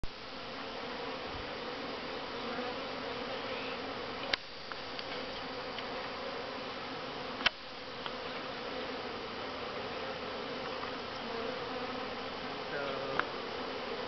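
A clustered honeybee swarm buzzing steadily with a low, even drone. Two sharp clicks come about three seconds apart near the middle.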